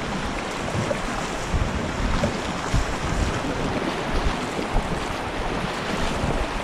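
Rushing whitewater of river rapids around a packraft, a steady hiss of water, with wind buffeting the microphone.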